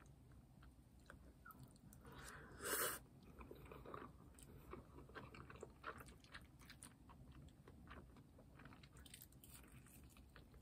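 Quiet chewing while eating spaghetti, with faint clicks of a wooden fork against a glass bowl. There is one louder, brief noisy sound about two and a half seconds in, over a faint steady low hum.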